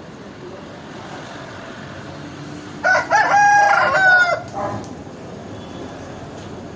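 An Aseel rooster crowing once, a single call of about a second and a half.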